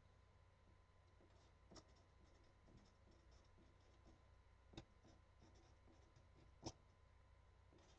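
Faint scratching of a marker tip writing letters, broken by three light taps of the tip, the loudest near the end.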